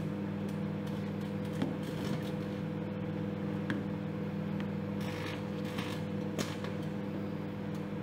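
Microwave oven running with a steady low electrical hum while crumpled aluminium foil inside arcs, giving scattered sharp snaps every second or so.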